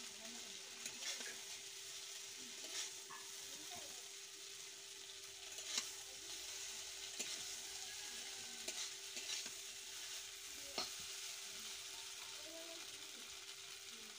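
Instant noodles frying with a faint sizzle in a steel kadai, stirred with a metal spatula that clicks and scrapes against the pan now and then.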